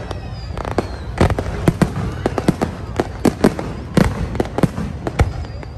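Aerial fireworks display: a rapid, irregular string of sharp bangs and cracks from shells bursting overhead, several a second, over a steady low rumble.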